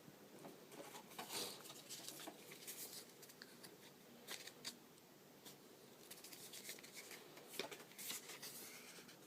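Faint rustling and light clicks of a cardboard lens box and its paper contents being opened and handled.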